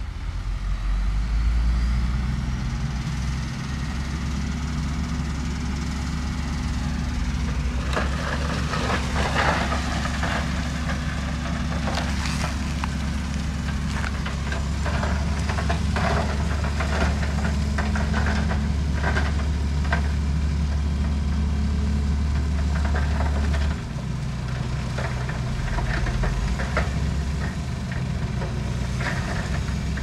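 Heavy diesel earthmoving machine's engine running steadily under load, its pitch dropping about twenty-four seconds in. From about eight seconds in there is repeated clattering and rattling of rock.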